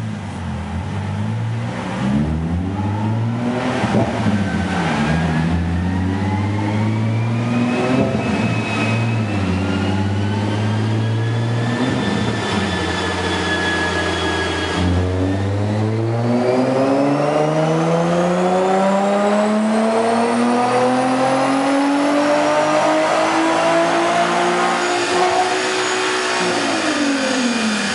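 Nissan 370Z's 3.7-litre V6 running through an Underground Racing aftermarket exhaust on a dyno, pulled up through the revs under load. The pitch climbs, drops sharply about halfway through as the next gear is taken, climbs steadily for about ten seconds, then falls near the end as the throttle is let off.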